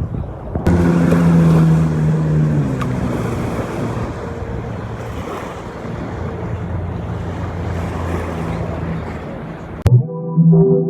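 Motorboat engine running steadily over water, with wind buffeting the microphone. It cuts off suddenly near the end, and music comes in.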